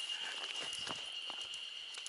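Spring cicadas (haruzemi) calling in a steady high drone, with light footsteps and small ticks on the path.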